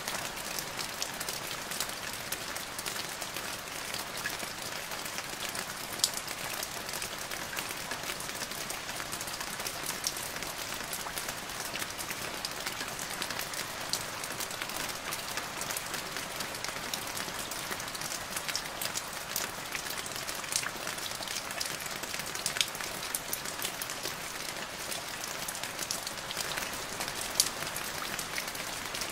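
Steady rain falling into a puddle: a constant hiss made of many individual drop splashes, with a few louder close drops standing out.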